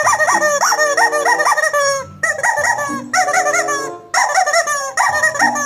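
Playful background music full of high squeaky, chirping sounds that bend quickly up and down in pitch over steady low notes, breaking off briefly about two and four seconds in.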